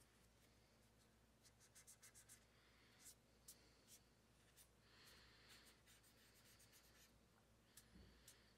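Very faint scratching and rubbing with scattered small ticks: a cotton swab wiping excess red thread locker from around a pistol's front sight in its slide dovetail.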